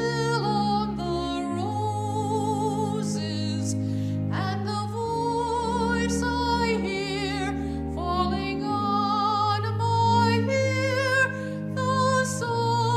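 Church organ playing a slow hymn accompaniment, with held bass notes that change every second or two and wavering upper tones.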